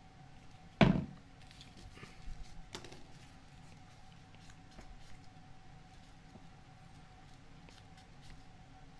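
Folded paper origami units rustling and clicking as they are handled and pushed together, with one sharp knock just under a second in and a brief spell of crackling about two seconds in.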